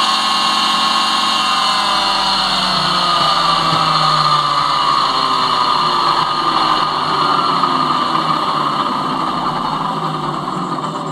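The boat's electric drive motor runs free, unhooked from its drive shaft, with a steady whine that slowly falls in pitch. It is being run on its own to find a grinding that the owner suspects comes from a bad bottom bearing.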